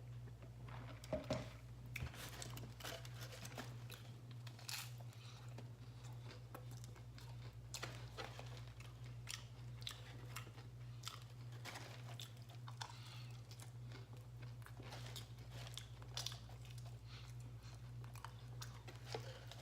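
A person chewing and crunching mouthfuls of a taco with refried beans, in irregular crunches, over a steady low hum.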